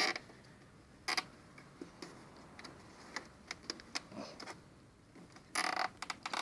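Plastic zip tie being pulled tight around a corrugated vacuum-cleaner hose, its ratchet clicking, with scattered ticks and knocks of the plastic hose and bucket being handled and a denser burst of clicks near the end.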